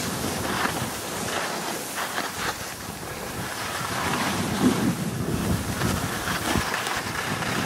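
Wind rushing over the microphone of a skier moving downhill, with the hiss and scrape of skis sliding on packed snow, rising and falling unevenly.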